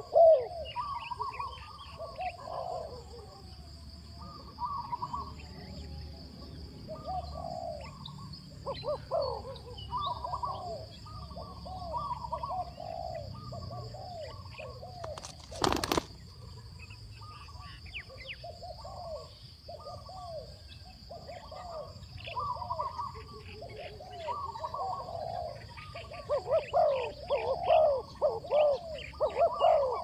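Spotted doves cooing, short low phrases repeated over and over, with one sharp snap about halfway through.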